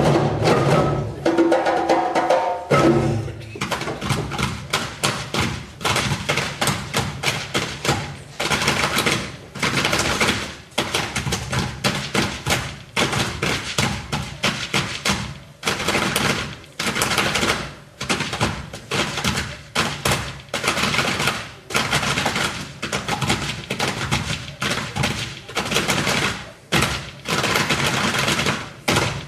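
African percussion ensemble of djembes, hand-struck calabash gourds, wooden log drums and a balafon playing together. After a few held pitched notes in the first seconds, dense hand drumming runs on in a fast, even rhythm.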